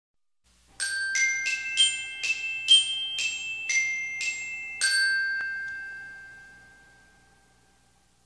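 A short intro jingle of bell-like tuned-percussion notes, glockenspiel-style: about ten struck notes in quick succession, the last one ringing on and slowly fading away.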